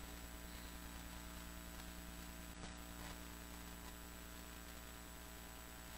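Quiet room tone dominated by a steady electrical mains hum, with two faint soft ticks about two and a half and three seconds in.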